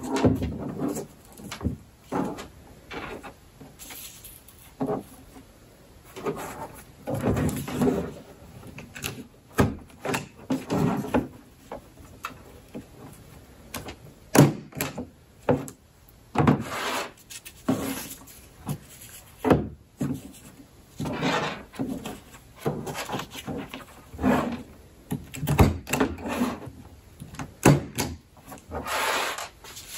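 Small hand stapler clacking shut again and again as it staples folded paper pennants onto a yarn string. Between the sharp clicks are the rustle and rub of paper being handled on a table.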